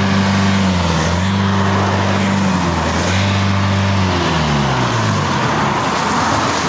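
Van engine running at steady revs, its pitch dipping briefly twice, then falling away over about a second and a half as it slows, over steady road and wind noise.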